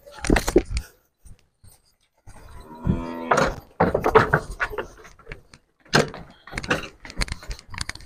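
Hooves of a young heifer knocking and clattering on wooden planks and concrete as she is led on a halter. A few knocks come at the start, then an irregular run of knocks from about three seconds in.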